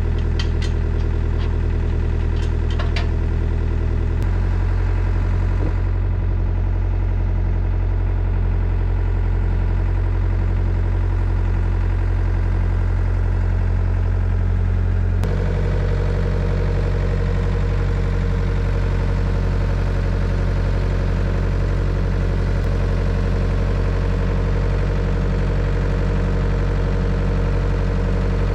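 Diesel engine of a compact excavator running steadily, its engine note changing about four seconds in and again around fifteen seconds in as the throttle or load changes.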